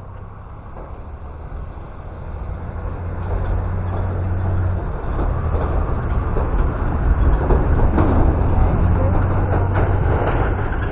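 A small off-road vehicle's engine running as it drives, with a steady low hum that grows louder from about two seconds in as it pulls harder.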